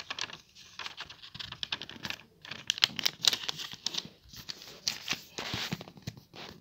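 A sheet of lined notebook paper rustling and crackling as it is folded and creased flat by hand, with irregular papery clicks and scrapes.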